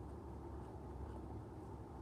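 Faint, steady low room noise with no distinct event.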